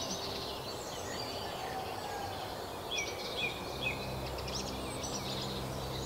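Woodland birds singing and calling over faint steady background noise, with a short run of repeated whistled notes about three seconds in. Soft, low, steady music tones come in about halfway through.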